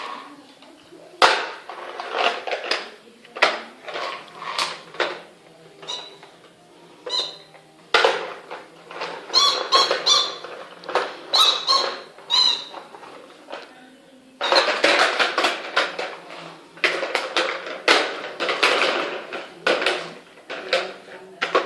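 Rubber squeaky toy dog squeezed over and over, giving irregular runs of short, high squeaks with pauses between them.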